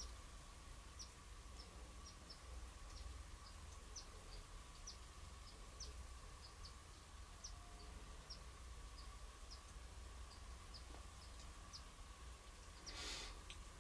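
Faint, high, short chirps repeating about twice a second from a small bird calling, with a brief rustling noise near the end.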